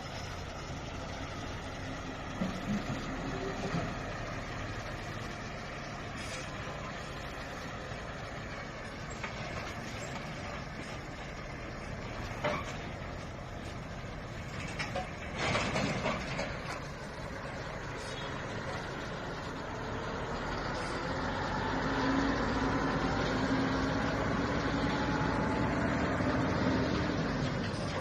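Steady mechanical running noise of a coal-fired steam boiler plant's machinery, with occasional sharp knocks. A louder noisy burst comes about halfway through, and a steady hum tone rises in over the last several seconds before stopping near the end.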